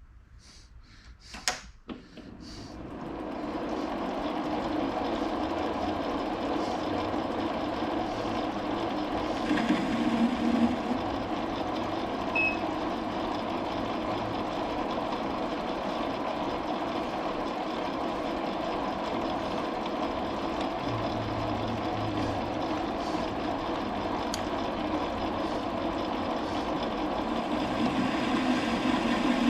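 Metal lathe turning down the outside diameter of a bar: a few clicks first, then the machine and cut build up over about two seconds and run steadily. The machinist thinks the tool is dull.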